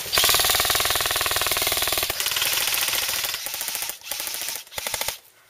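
Airsoft electric gun firing on full auto: a long, rapid, even rattle of shots for about three and a half seconds, then a couple of short bursts, then stopping.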